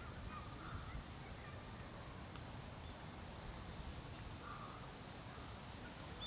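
Outdoor ambience: a steady low rumble with a few faint, distant bird calls.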